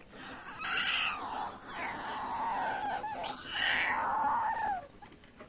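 A toddler whining and fussing in high-pitched, wavering cries, about three drawn-out ones in a row, stopping about five seconds in.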